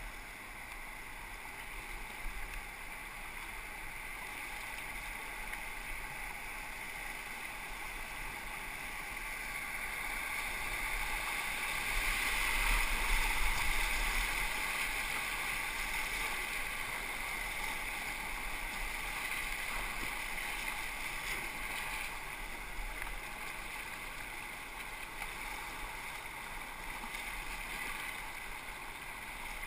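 River whitewater rushing around a kayak as it is paddled through a rapid. The water noise swells to its loudest about twelve to fourteen seconds in, as the boat runs through the foaming waves, then eases back.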